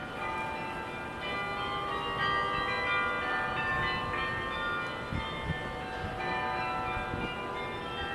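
Carillon bells of Sather Tower, the Berkeley campanile, playing a tune. Many bells ring in turn and their tones overlap as they die away.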